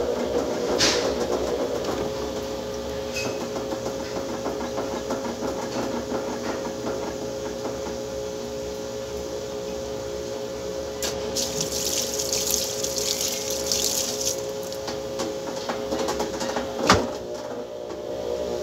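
Top-loading washing machine running with its load turning in the tub: a steady motor hum with a held tone and the sound of water. A hissing stretch comes in the middle, and a single sharp knock comes near the end.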